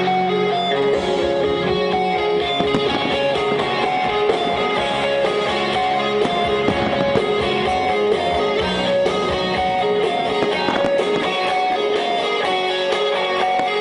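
Music led by guitars, with steady held notes over a dense strummed rhythm.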